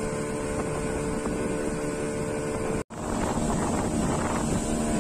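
Outboard motor of a small river boat running steadily under way, with wind buffeting the microphone. The sound breaks off for an instant just under three seconds in, then carries on slightly louder.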